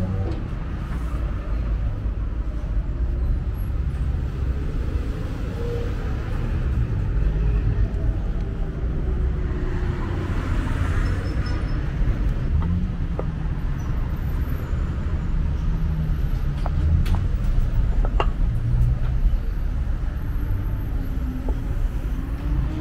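Street traffic ambience: cars running past on the road beside the sidewalk, a steady low rumble with a few brief clicks and knocks.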